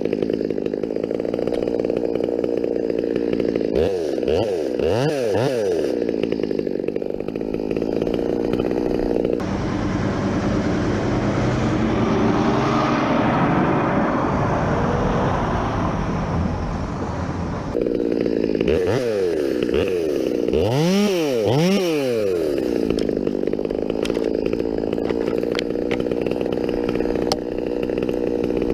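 Two-stroke chainsaw running at idle, revved up and back down a few times, and held at full throttle for about eight seconds in the middle while it cuts through a limb.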